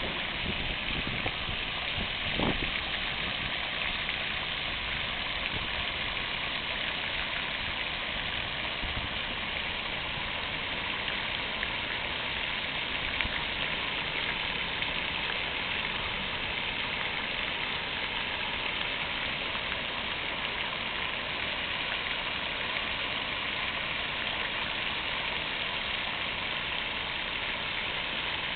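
Fountain water splashing in a steady, even rush, with one brief low knock about two and a half seconds in.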